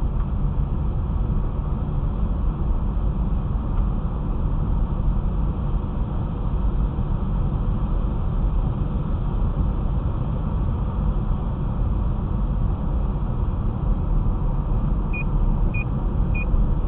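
Steady road rumble heard from inside a moving car: tyres on a wet road and the engine. Near the end a short high beep starts repeating about every 0.6 seconds.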